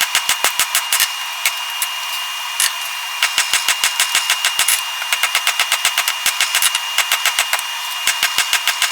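Hammer blows on the hot chainsaw-chain and file billet as it is forge-welded and drawn into a knife, fast and evenly spaced at about six a second, in runs broken by short pauses. A steady high whine and hum runs underneath.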